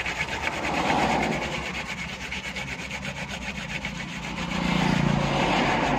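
Mawa, areca nut and tobacco with slaked lime, being rubbed hard between the palms to mix it: a rapid, rhythmic scraping, many strokes a second.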